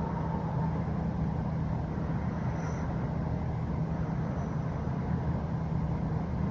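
Steady low rumble of a running road vehicle, with a low hum and no change in pace.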